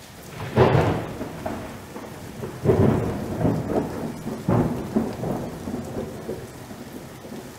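Thunderstorm: three rolling thunderclaps about two seconds apart, each dying away, over steady rain.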